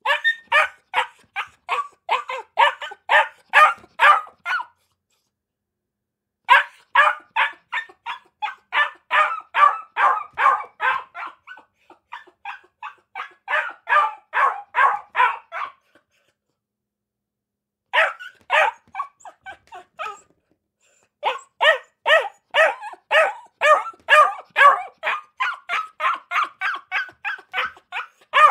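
Akita puppies barking in quick runs of short, high barks, about three a second. The runs break off into silent pauses of a second or two several times.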